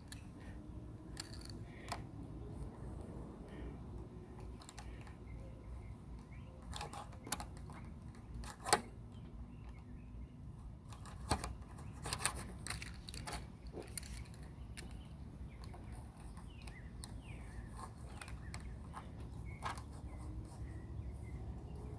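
Scattered sharp clicks and small taps from working a lanai screen frame: D-spline being rolled into the aluminium channel and the holding clips being pulled out, the loudest click a little under nine seconds in.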